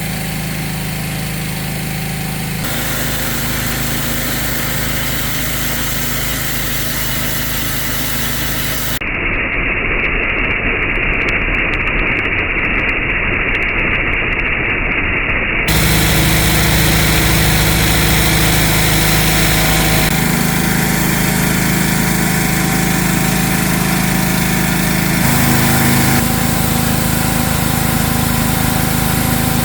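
Gas pressure washer engine running steadily while the surface cleaner is used on the driveway. The sound changes abruptly several times, and from about 9 to 16 seconds it is muffled, with the high end cut off.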